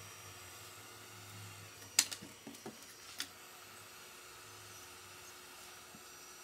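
Hot air rework gun blowing a steady, faint hiss of air onto heat shrink tubing. A few sharp clicks come about two to three seconds in, the first the loudest.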